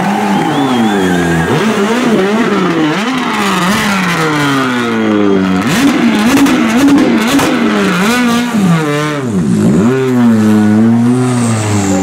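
Hyundai i20 WRC rally car's engine being revved over and over, its pitch rising and falling in quick blips, dropping low and climbing again near the end.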